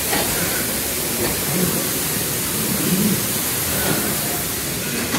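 Steady rushing of falling water, a waterfall effect in a dark ride's cavern.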